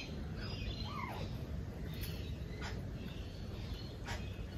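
Faint bird chirps and a short call over a low steady outdoor rumble, with a few soft clicks around the middle and near the end.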